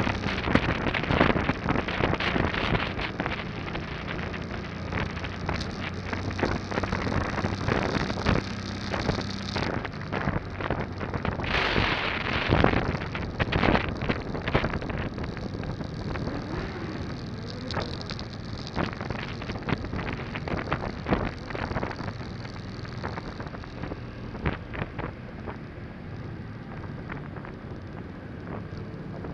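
Motorcycle engine running while riding, with heavy wind buffeting on the microphone. The engine note shifts about ten seconds in.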